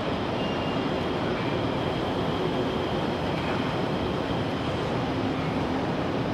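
ICE high-speed train rolling past through the station, a steady rumble with a faint high whine.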